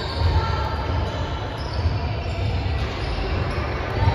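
Steady, echoing gym background noise during a basketball game: a low rumble with faint, indistinct voices and occasional ball bounces.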